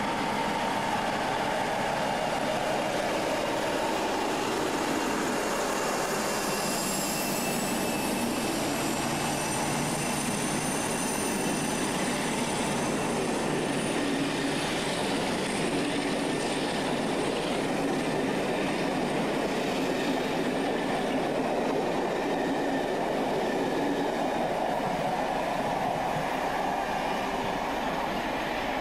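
Class 47 diesel locomotive, its Sulzer twin-bank engine working under power, hauling its coaches out past the platform with steady rumbling wheel and rail noise. High, shifting wheel squeals come in about six seconds in and die away after a few seconds, and the sound eases slightly near the end as the train draws away.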